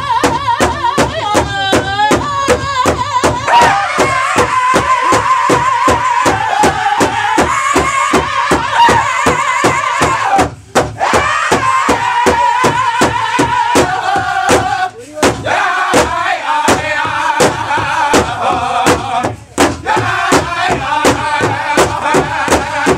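Powwow drum group: several men singing together in a high, strained style while beating one large shared drum in a steady fast beat, about three strokes a second. Drum and voices drop out briefly three times, about halfway through and twice later.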